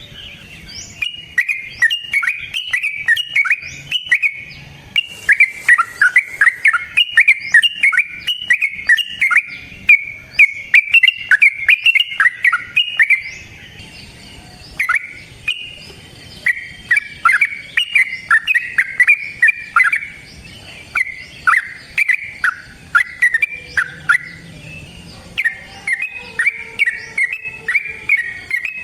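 Yellow-vented bulbul (trucukan) singing in long, rapid runs of bubbly chirping notes, with short pauses about halfway and again near the end.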